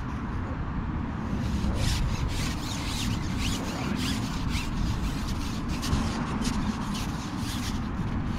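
Quick, irregular rubbing and scraping noises, starting about a second and a half in and going on for several seconds, over a steady low rumble.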